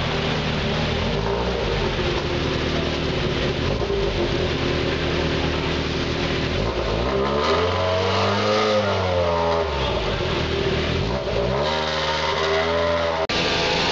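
Fiat 131 rally car engine idling, blipped up and back down twice: a long rev about halfway through and a shorter one near the end.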